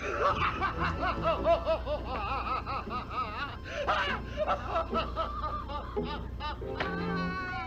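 Cackling laughter, a high voice wobbling rapidly up and down in pitch, cutting in and out abruptly like a dropped-in sound effect; near the end the voice changes to a higher rising tone.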